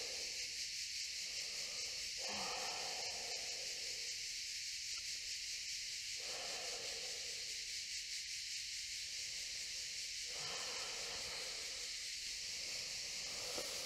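Cicadas buzzing in a steady high drone with a fine rapid pulse. Three soft breaths come through about four seconds apart, around two, six and ten seconds in.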